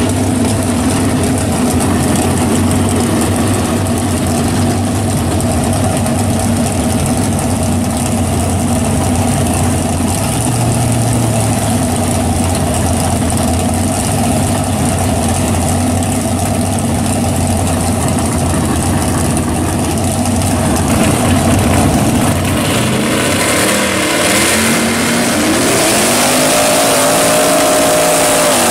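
A 454 big-block V8 in a second-generation Camaro drag car idles steadily for about twenty seconds. Near the end it revs up hard into a burnout, its pitch climbing as the rear tyres spin and smoke.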